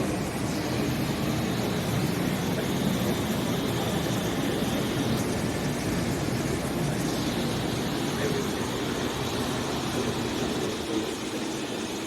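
Steady rumbling hiss of a train running at a railway station platform.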